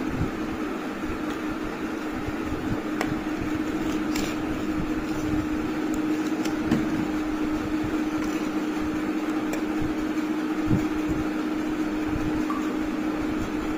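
A steady hum with an even hiss underneath, like a running electric fan, and a few faint clicks.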